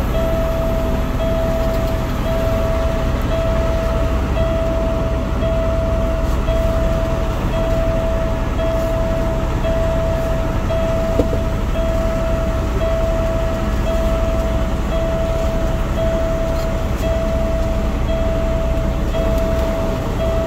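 Reverse backup alarm beeping about once a second, each beep long with a short gap, over the steady rumble of a Peterbilt 389 semi truck's diesel engine as the rig backs up.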